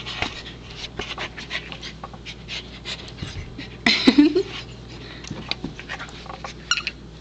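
Pembroke Welsh Corgi panting close to the microphone as she works at her toy box, with one short louder sound about four seconds in.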